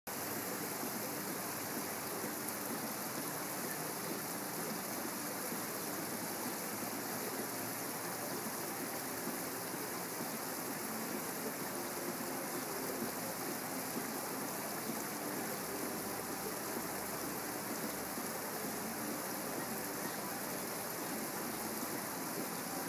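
Steady, even rushing outdoor background noise with no distinct events; the marchers' footsteps do not stand out from it.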